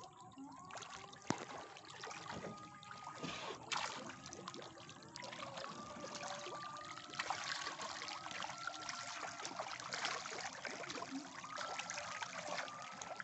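A packed school of farmed tilapia churning at the surface of a floating river cage, making a dense, continuous patter of small splashes and trickling water.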